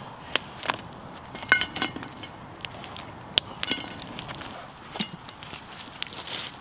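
Burning coals and embers being set on a cast-iron Dutch oven lid: scattered sharp clicks and knocks with a few brief metallic clinks, over a faint campfire crackle.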